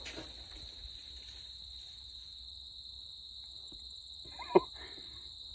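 Crickets chirring steadily, with one sharp loud crack about four and a half seconds in: a tree limb breaking off and falling.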